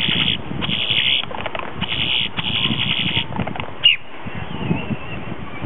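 A male grackle singing: several harsh, buzzy chattering bursts, then one sharp rising whistled note about four seconds in, followed by a faint wavering note.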